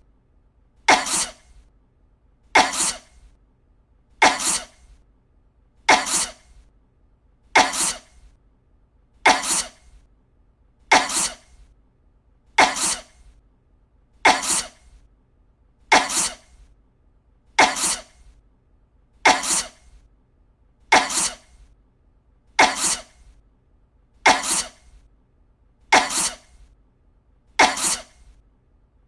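Short, harsh coughs repeating evenly, about one every 1.7 seconds.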